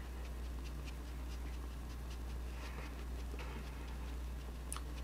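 Makeup sponge dabbing and blending foundation on the face: faint, irregular soft pats, with one sharper click near the end, over a steady low electrical hum.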